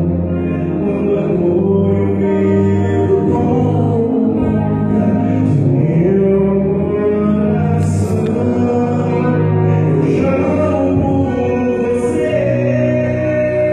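Live band performing a Christian rock song: a man singing into a microphone over electric guitar, drums and keyboard, played loud and continuous.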